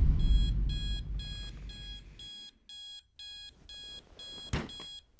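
Digital alarm clock beeping, an electronic beep repeated about twice a second. A low rumble fades out over the first two seconds, and a single thump comes near the end.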